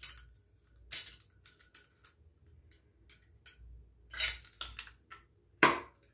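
Tight screw lid being twisted and worked loose on a glass jar: a series of sharp clicks and scrapes in irregular bursts, the loudest near the end.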